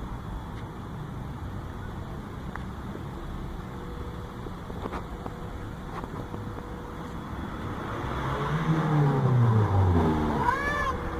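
Peugeot 307 2.0 engine breathing through an open Simota aftermarket air filter: it idles steadily, then is revved once about eight seconds in, its pitch climbing and falling back, with a short higher blip near the end.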